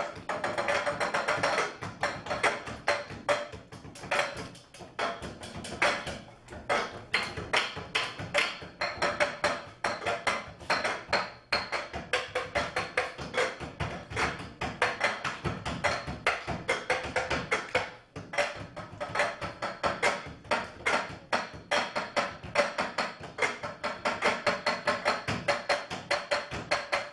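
A percussion ensemble playing a fast, steady rhythm by striking and tapping cups, a dense run of sharp clicks and knocks.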